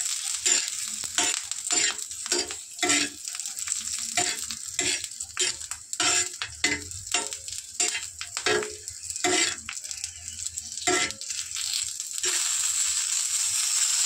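Dried red chillies, garlic and green chillies sizzling in mustard oil on a hot tawa. A spatula scrapes and turns them across the pan in quick, irregular strokes. About 12 seconds in the strokes stop and a steady, louder sizzle carries on.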